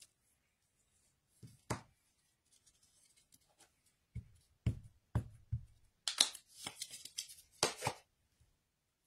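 Clear acrylic stamp block and ink pad handled on a craft mat: a sharp knock, then four dull taps as the ink pad is dabbed onto the stamp. After that come a couple of seconds of clicking and rustling.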